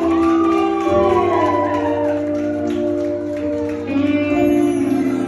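Instrumental music: a melody line that glides slowly in pitch over held chords, with a steady low bass.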